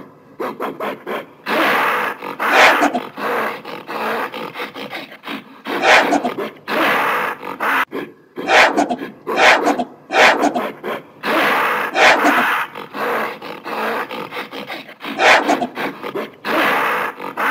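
Gorilla vocalising in a run of short, rough, breathy bursts, about one a second, some longer and louder than others.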